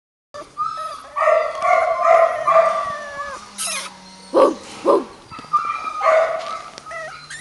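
Maltese puppies whining in drawn-out high cries, with two short yips about four and a half seconds in.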